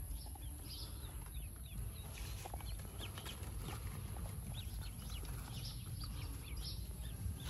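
A brood of newly hatched Pekin ducklings peeping, many short high cheeps overlapping without pause.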